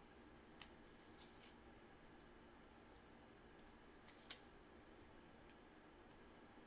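Near silence, broken by a few faint clicks and slides as 1983 Fleer cardboard baseball cards are flipped through by hand. The sharpest click comes about four seconds in.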